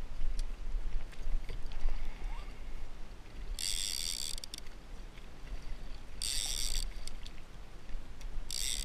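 Fishing reel's drag ratchet buzzing in three bursts of under a second each, about two seconds apart, as a hooked blacktip shark pulls line off. A steady low wind rumble on the microphone lies underneath, with a few handling bumps in the first two seconds.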